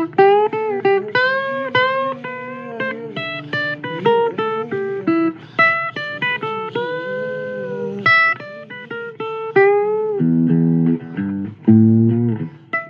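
Guitar playing a blues lead line: picked single notes, several bent up and down in pitch, then two low strummed chords near the end.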